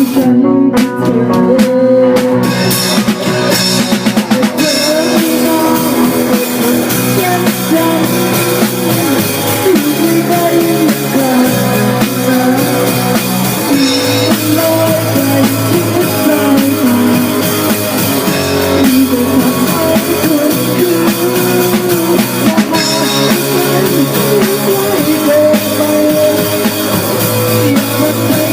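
Rock music with drum kit and electric guitar playing steadily, with some singing.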